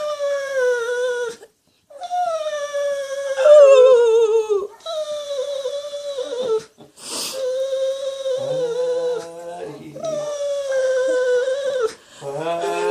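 Boxer–bullmastiff mix whining for attention: a run of about six long, high, nasal whines, each lasting a second or two and sliding slightly down in pitch. A breath is drawn between them about seven seconds in.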